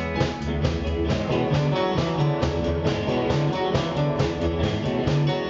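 Rock and roll band playing an instrumental passage without vocals: an electric guitar riff over bass and a steady drum beat.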